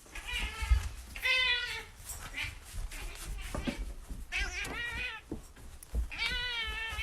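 A domestic cat meowing insistently: about four drawn-out, wavering meows, with a few light knocks between them.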